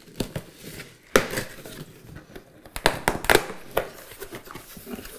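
Cardboard shipping box being unsealed by hand: clear packing tape ripped off and the cardboard flaps pulled open. Irregular rustling with sharp rips about a second in and a cluster around three seconds in.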